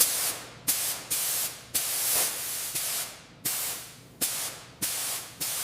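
Pressurised spray hissing in about eight short, sharp-starting bursts that tail off, with one longer burst about two seconds in.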